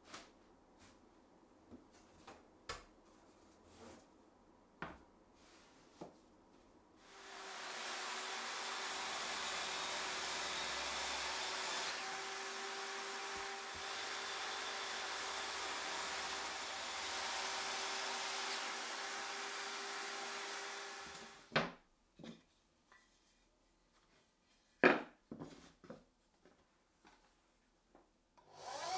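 A corded circular saw with a dust-extraction hose attached runs steadily for about fourteen seconds while cutting through an MDF sheet along a guide rail, starting about seven seconds in and stopping cleanly. Before it starts and after it stops there are light knocks and taps of boards being handled on the bench.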